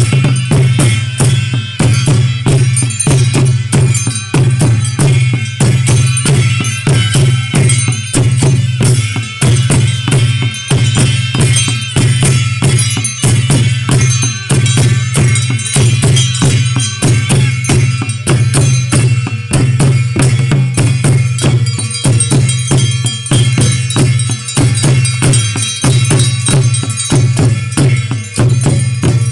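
Several barrel drums beaten together in a fast, steady, unbroken rhythm, with a bright shimmer above the beats: ritual drumming for a Nepali deity-possession dance.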